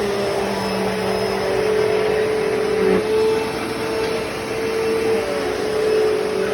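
Hoover Deluxe Elite Rewind upright vacuum cleaner running while vacuuming, a steady motor whine over airflow rush, with a lower hum dropping out about halfway through.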